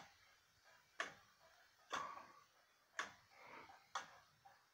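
Circa-1790 Gideon Roberts tall case clock with a wooden movement, ticking faintly and evenly about once a second.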